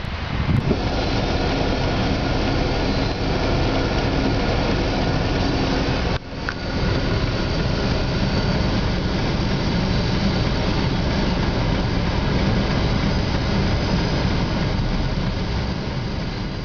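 Freight train cars rolling past, a steady noise of steel wheels on rail. It breaks off briefly about six seconds in.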